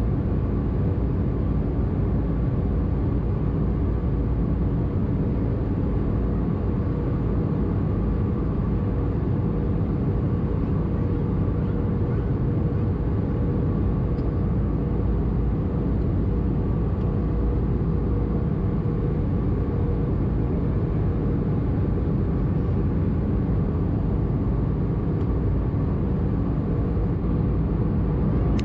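Steady cabin drone inside an Airbus A320-214 in flight: engine and airflow noise as a dense low rumble with a constant hum on top, unchanging throughout.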